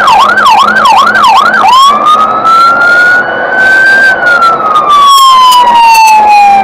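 Fire engine's electronic siren, loud: a fast up-and-down yelp for the first second and a half or so, then switching to a slow wail that rises for about two seconds and falls over the next two and a half.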